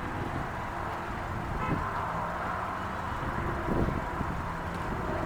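Steady outdoor road-traffic noise, a car driving past.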